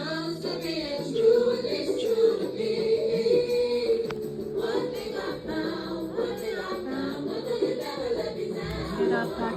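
A voice singing over musical accompaniment, holding one long note starting about a second in.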